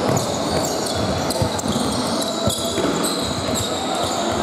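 Basketball game in a sports hall: shoes squeaking on the wooden court, a ball thudding twice, and players' voices, all echoing in the large hall.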